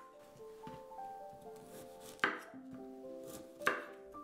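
Chef's knife cutting through cauliflower florets onto a wooden cutting board, with two sharp knocks about two seconds in and near the end and softer cuts between. Soft background music with held notes plays underneath.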